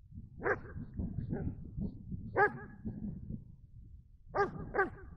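A dog barking: about six short, separate barks at uneven intervals, with a low rumble underneath.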